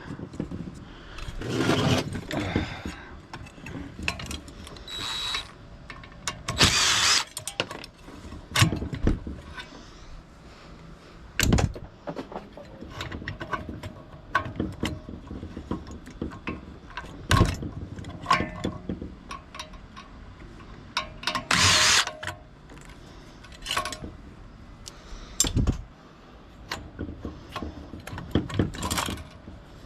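Small pieces of scrap metal being handled and tossed into bins: irregular clanks and clinks, with a few longer clattering rattles.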